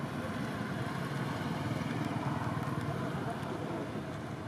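Steady outdoor background noise of road traffic and motorbikes, with faint indistinct voices.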